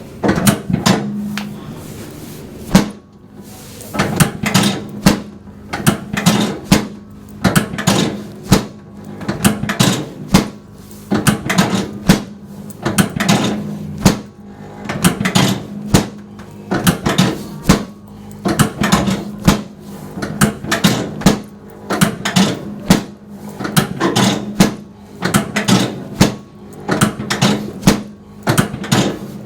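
Handheld percussion massage gun running against the body: a steady motor hum with repeated knocks, about one to two a second, as it is pressed and moved over the legs.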